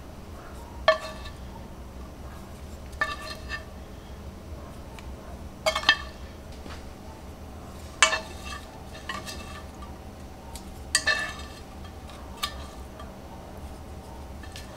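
Wooden chopsticks clinking against small cast-iron pans while sliced beef is piled in: about six scattered clinks, some in quick pairs, each leaving a short ringing tone.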